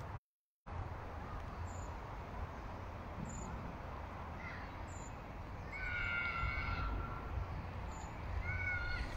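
Outdoor ambience with a steady low rumble, cut off completely for half a second just after the start. An animal calls: a short call midway, a long drawn call about six seconds in, and a shorter one near the end.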